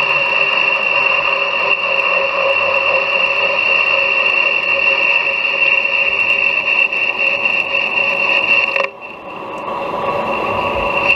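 Metal lathe running with a steady high whine as it spins the tapered bushing being made. The sound drops suddenly about nine seconds in, then builds back.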